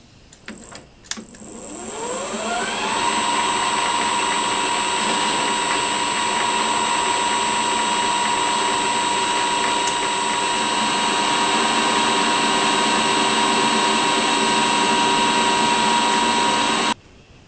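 A variable-frequency-drive-controlled metal lathe starting with a click, spinning up with a rising whine over about two seconds, then running at steady speed with a high whine while turning a steel tee-bolt blank. The sound cuts off suddenly near the end.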